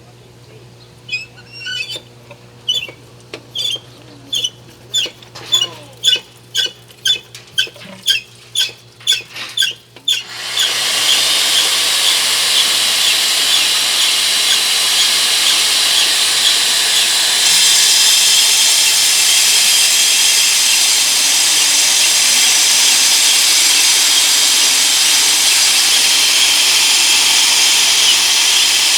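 Core drilling machine: short high-pitched bursts, about a second apart and then closer together, for about ten seconds, then the machine runs continuously with a steady, loud, high-pitched hiss.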